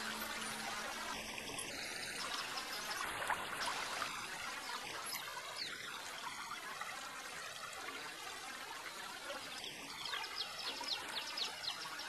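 Shallow river water running and trickling over rocks, a steady rush with a few slightly louder splashy moments near the end.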